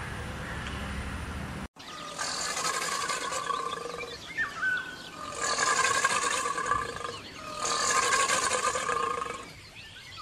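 A steady low rumble cuts off abruptly, then three long roaring animal calls follow, each about two seconds long.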